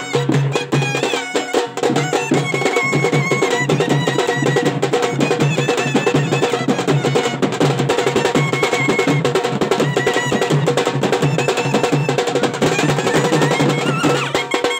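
Live traditional band music: a clarinet playing a wavering melody over loud, fast, dense drumming.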